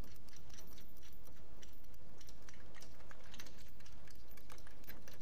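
Scattered light clicks and ticks as small metal parts of a Ford 1.8 16-valve DOHC engine's timing-belt tensioner are handled and fitted by hand, with the anchor bolt and tensioner pieces knocking against each other.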